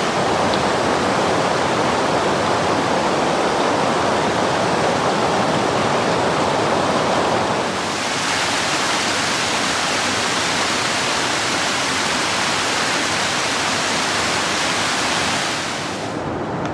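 Rushing water of a shallow river pouring over flat rock, a steady full rush. About eight seconds in it shifts to water splashing down a small rocky cascade, and near the end it turns duller and a little quieter.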